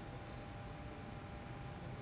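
Steady room tone: an even background hiss with a faint, constant hum tone and no distinct events.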